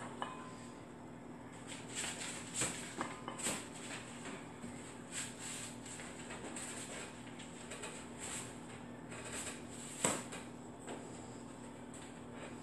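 Hard, rapid breathing of a woman straining through a set of barbell hip thrusts, the breaths coming in short bursts, with clinks of the barbell and its weight plates and one sharp clank about ten seconds in. A steady low hum runs underneath.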